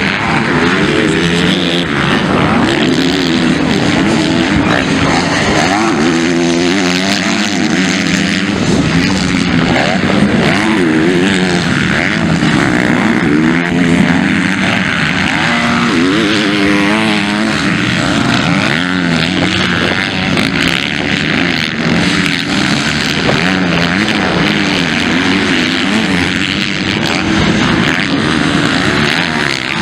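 Several MX2 motocross bikes racing on a dirt track, their engines revving up and down and overlapping without a break.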